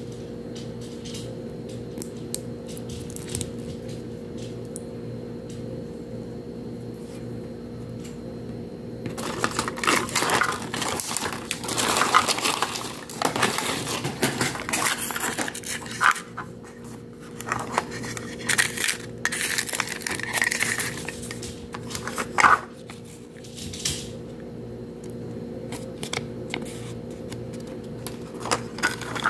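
Handling of a plastic Mini Brands capsule: clicks, taps and rustles as its halves and paper inserts are worked, busiest through the middle, over a steady low hum.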